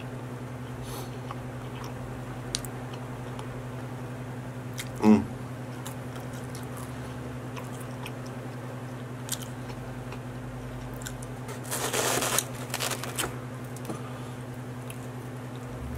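Close-miked chewing of a mouthful, with faint mouth clicks over a steady low hum. A brief voiced sound comes about five seconds in, and a burst of rustling about twelve seconds in as a pizza slice is pulled from its cardboard box.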